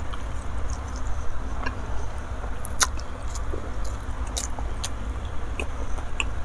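Close-miked chewing of a mouthful of spicy balado food and rice, with wet mouth clicks and smacks scattered through; the sharpest smacks come about three seconds in and again about a second and a half later.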